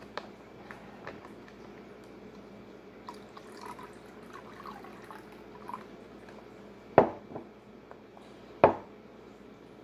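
Water poured slowly from a glass measuring cup into a plastic drink pouch: a faint trickle with small drips, then two sudden loud taps near the end, about a second and a half apart.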